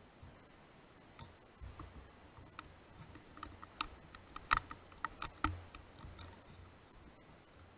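Handling and movement noise picked up by a rifle-mounted night-vision scope: a scatter of small clicks and crackles with a few dull thumps, busiest and loudest in the middle.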